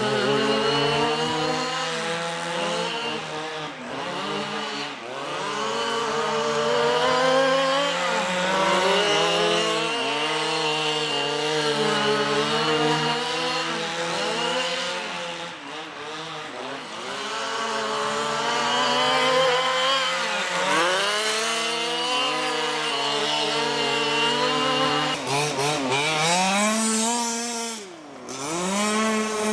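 Several small petrol two-stroke engines of 1/4-scale RC race cars, revving up and down as the cars lap the track, their pitch rising and falling again and again with swooping changes as cars pass.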